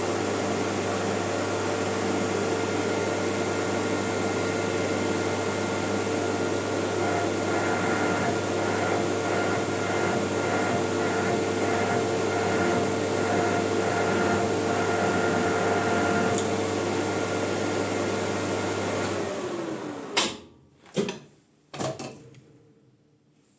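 Maximat metal lathe running steadily, its spindle carrying a bicycle disc brake rotor. Near the end its pitch drops quickly as the disc brake pulls the spindle to a stop, followed by three sharp knocks.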